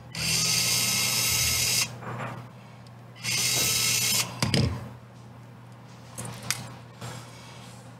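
Small electric precision screwdriver whirring in two bursts, the first about a second and a half long and the second about a second, as it backs a small screw out of the plastic transmission of a Traxxas TRX-4M mini crawler. A few light plastic clicks of handling follow.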